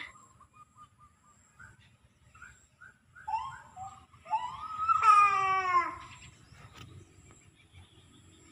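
A toddler's high-pitched vocalising: a few short squeaky calls, then a longer whiny cry about five seconds in that sags in pitch toward its end.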